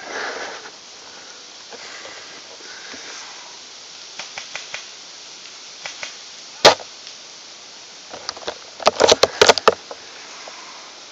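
Airsoft gun firing close by: one sharp crack about six and a half seconds in, then a rapid burst of about eight shots near the nine-second mark, over a steady rush of wind on the microphone.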